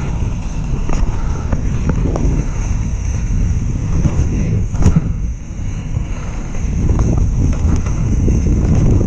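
Wind rushing over the microphone and tyre noise of a downhill mountain bike descending a trail, with a single sharp knock about five seconds in.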